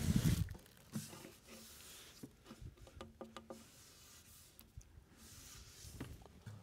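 Handling noise as a boxed inverter is lifted out of its foam packing and plastic bag: a low thump at the start, then faint scattered creaks, clicks and rustles.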